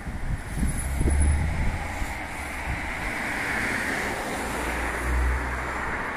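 Steady rush of road traffic going by, swelling around the middle, with wind buffeting the microphone in low rumbles about a second in and again near the end.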